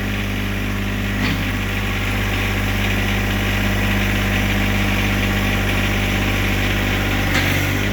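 John Deere 1025R's three-cylinder diesel engine idling steadily, with a slight change in tone just over a second in and again near the end.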